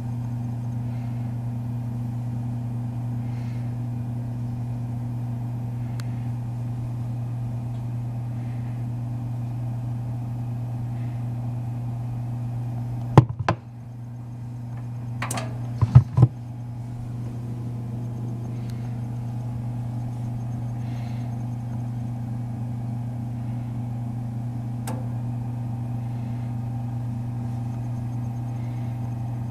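Toaster oven running with a steady electrical hum. About thirteen seconds in a sharp click briefly drops the hum, which then comes back, and a few sharp clicks or knocks follow a couple of seconds later.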